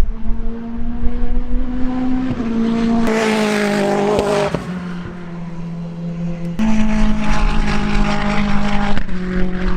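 Praga R1T race car's engine running hard on track, its pitch stepping with shifts, with a loud rushing burst about three seconds in. About two-thirds of the way through the sound jumps abruptly louder.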